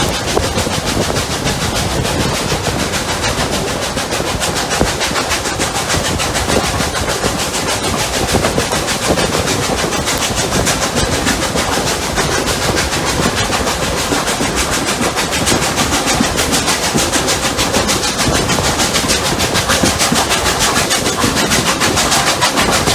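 Steam-hauled train heard on board while running, a steady loud noise broken by rapid, even beats.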